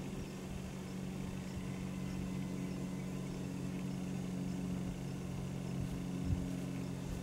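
Steady low mechanical hum holding several tones, with one short low thump about six seconds in.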